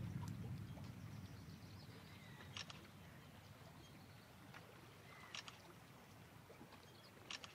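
Thunder rolling low and dying away over the first few seconds, leaving faint background with a few short, sharp clicks.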